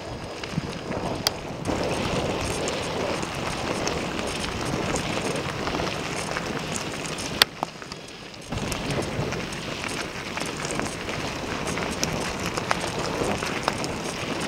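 Wind buffeting the microphone as a steady rushing noise, with a few sharp clicks. It cuts out for about a second just after the middle, starting with a click, then comes back.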